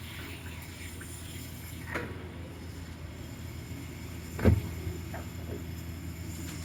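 Steady low machine hum, with a few sharp knocks: one about two seconds in, a louder one about four and a half seconds in, and two lighter ones just after.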